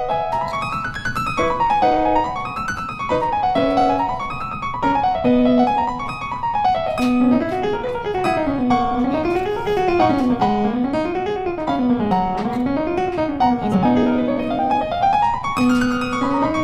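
Background piano music: quick rising and falling arpeggio runs.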